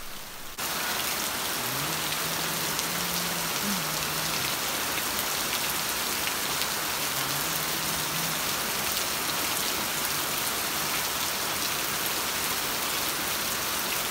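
Heavy rain falling steadily, a dense even hiss of drops on grass and roof that comes in abruptly about half a second in.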